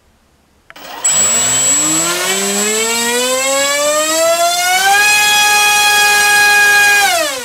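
Tarot TL3723 1700 kV brushless motor spinning a 7x5 propeller on a thrust stand. It starts about a second in with a whine that climbs steadily in pitch for about four seconds, holds at its top speed for about two seconds while pulling about 2.7 kg of thrust, then winds down near the end.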